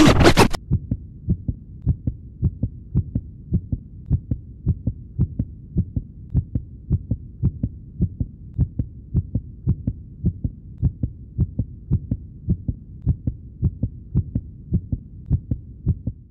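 Heartbeat sound effect: steady, slow double beats in low pulses, about one pair a second. Loud music cuts off just after the start.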